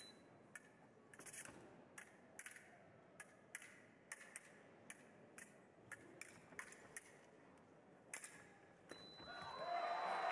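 Steel fencing blades clicking and clashing against each other in quick, irregular exchanges, about two to four sharp clinks a second. Near the end a steady high beep sounds and applause swells.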